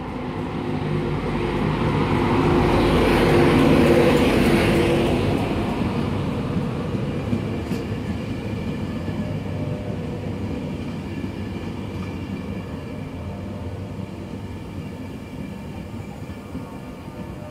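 LNER InterCity 225 train, a Class 91 electric locomotive hauling Mark 4 coaches, running along a station platform. It is loudest as the locomotive passes about four seconds in, then the coaches roll by more quietly with a steady low hum.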